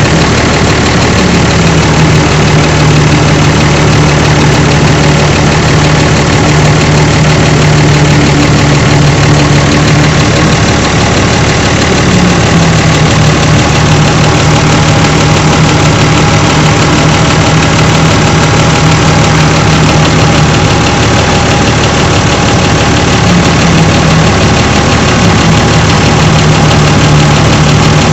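Truck engine idling steadily, a truck that had been left standing unused for three years. The engine note steps slightly up and down a few times.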